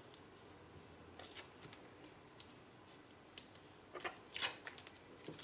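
Faint rustling and scraping of paper and foam tape as hands work foam tape onto the back of a die-cut paper heart, with a few short scratchy sounds around a second in and again about four seconds in.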